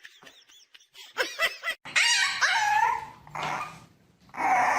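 A pet animal vocalizing: a series of short pitched cries, a longer cry that bends in pitch about two seconds in, then louder cries near the end.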